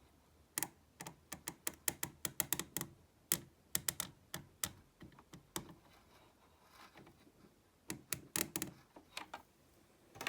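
Quick, irregular clicks and knocks of hard plastic parts being handled while a De'Longhi Magnifica coffee machine is taken apart to grease its drive. There is a dense run of clicks, a short pause, then a second cluster.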